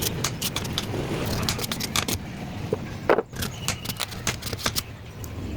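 A run of irregular sharp clicks and clinks of hard objects, with one louder knock about three seconds in.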